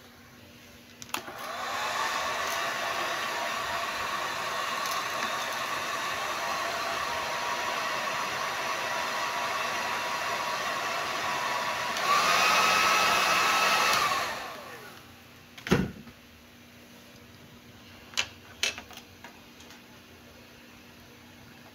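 A hair dryer blowing air over an open watch movement: its motor whines up about a second in, runs steadily, goes louder and higher for the last couple of seconds, then winds down and stops. A sharp knock follows, then a couple of small clicks as the watch is handled.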